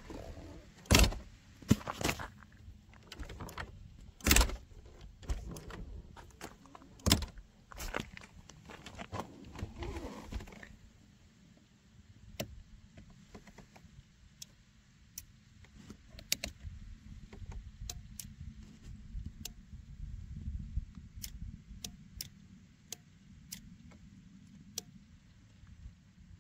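Loud knocks and rattling from a Citroën 2CV's door and cabin fittings being handled, five heavy knocks within the first eight seconds. After about eleven seconds it turns to a low rumble with sharp, irregular ticks.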